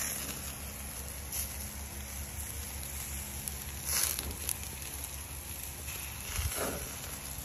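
Picanha steaks sizzling on a charcoal kettle grill over glowing coals, with a few sharp pops and crackles from the fire, over a steady low rumble.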